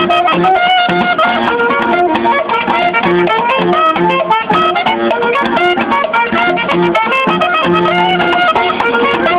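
Live acoustic street band playing an upbeat tune: a wind instrument carries the melody over a repeating bass line and steady percussion strikes.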